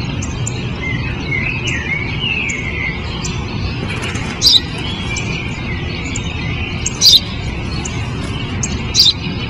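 Sparrow chirping: soft twittering in the first few seconds, then three loud, sharp single chirps a couple of seconds apart, over a steady low background rumble.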